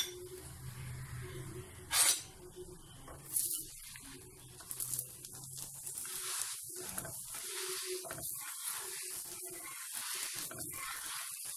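Radish paratha sizzling on a hot tawa while it is pressed with a spatula and turned. A few sharp knocks come in the first half, then a steady sizzle takes over from the middle on.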